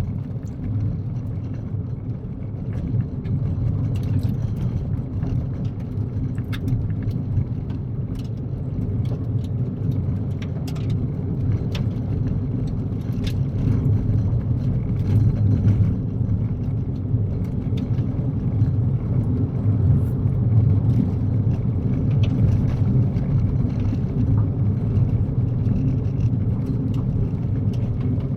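Kia Picanto driving on a gravel road: a steady low rumble of tyres and road noise, with frequent sharp ticks of gravel striking the car.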